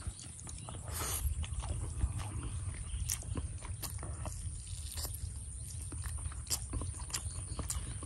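Close-up chewing and eating sounds: irregular wet mouth clicks and smacks as rice and cooked meat are eaten with the fingers, over a steady low rumble.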